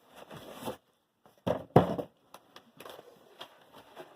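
Cardboard shipping box being opened and its contents handled: a rustling scrape, then two loud knocks about a second and a half in, then light scattered clicks.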